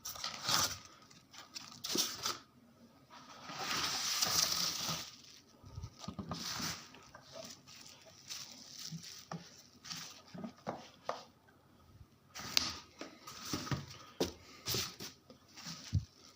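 Speaker packaging being handled and opened: crinkling, rustling and knocking of plastic wrap and cardboard, with a longer tearing sound about four seconds in.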